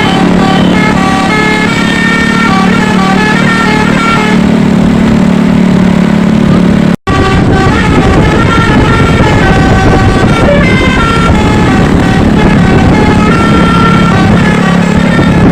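Telolet basuri bus horn playing a quick melody of short notes stepping up and down in pitch, over a low steady hum. The sound breaks off for an instant about halfway through.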